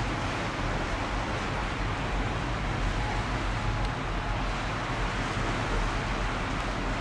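Steady wind noise on the microphone: a constant low rumble with a hiss over it, unbroken throughout.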